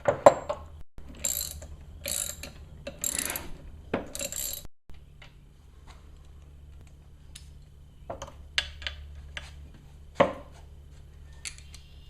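A socket ratchet wrench clicking through about five strokes as bolts on the outdrive's water pump housing are worked loose. After that come scattered light clicks of tools and parts, with one sharper knock near the end.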